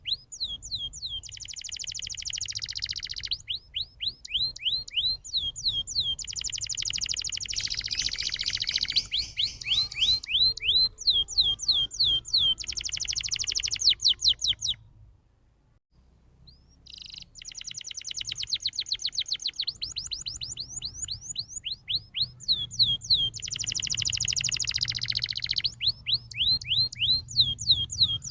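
Domestic canary singing a long rolling song: runs of quick falling whistled notes, several a second, alternating with fast buzzy trills. The song breaks off briefly about halfway through, then starts again.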